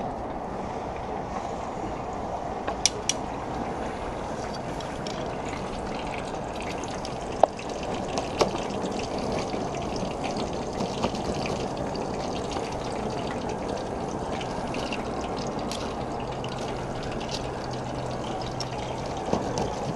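Fish fillet deep-frying in a pan of hot oil over a propane burner: steady sizzling and bubbling with scattered sharp pops of spattering oil.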